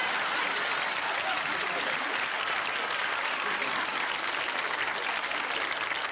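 Studio audience applauding steadily, welcoming a contestant who has just been introduced.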